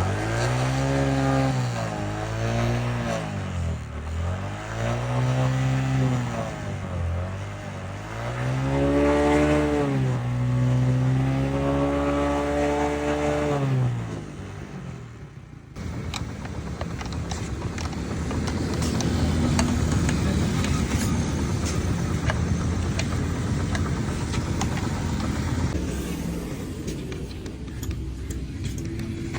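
Motorcycle engine revved up and down several times, its pitch rising and falling in repeated swells. After a sudden cut about halfway through comes a steady rough running noise with fine rapid ticking.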